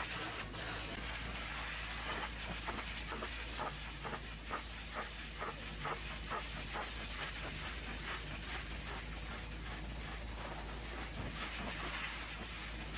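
Hot-water pressure-washer lance spraying a truck's wheel and then its metal fuel tank: a steady hiss of spray with rapid crackling spatter through the middle, over a low steady hum.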